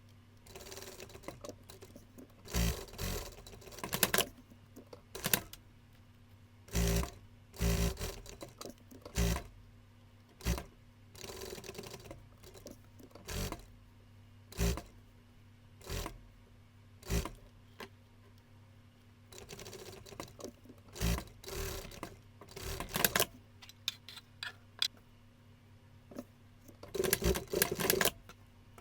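Sewing machine stitching in a series of short runs, most under a second and a few lasting one to two seconds, stopping between each, over a faint steady hum.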